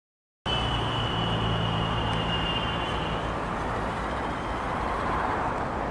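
Silence, then from about half a second in a vehicle motor running steadily over a loud rushing noise. A low hum and a high whine run alongside it until about three seconds in.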